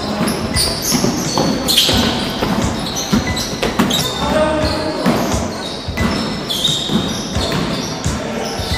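Basketball game sounds in a gymnasium: a basketball bouncing on the wooden floor in repeated knocks, short high sneaker squeaks, and scattered players' voices, all echoing in the large hall.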